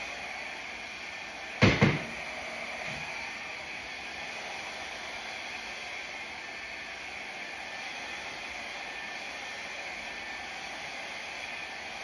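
Handheld hair dryer blowing steadily, aimed at wet poured acrylic paint to push it across the canvas. A sharp double knock comes about two seconds in.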